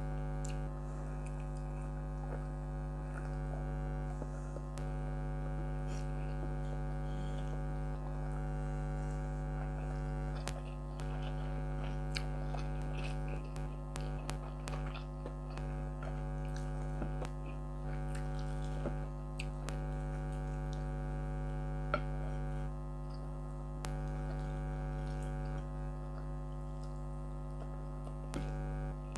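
Air conditioner running with a steady hum of several tones, with faint chewing and small clicks of eating by hand over it.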